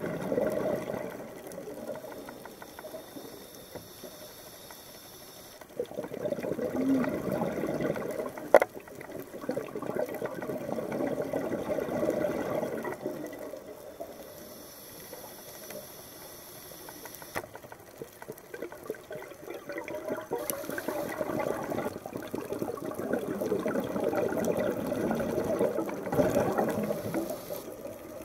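Scuba diver breathing through a regulator underwater: long gurgling rushes of exhaled bubbles, three times, alternating with a quieter hiss of inhalation.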